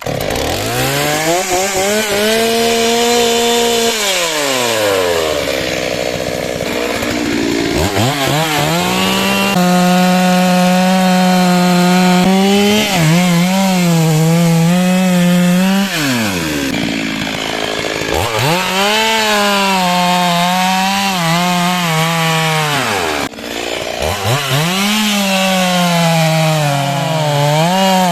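Two-stroke Stihl chainsaw running at full throttle, its pitch sagging and wavering as the chain cuts into wood. It drops back to idle about four seconds in and again around sixteen seconds, revving back up each time.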